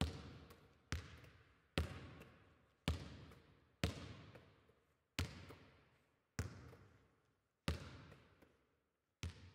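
A ball bounced on a hard floor about once a second, each bounce followed by a short echoing tail.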